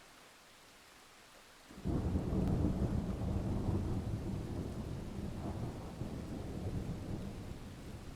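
Thunder: after a faint steady hiss, a clap breaks in suddenly about two seconds in and rolls on as a deep rumble that slowly fades.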